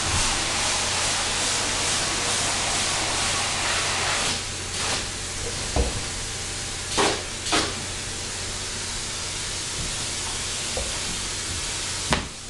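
Spray foam gun hissing as it sprays polyurethane foam insulation between floor joists, over a steady low hum. The hiss eases slightly about four seconds in, with two short louder spurts around seven seconds.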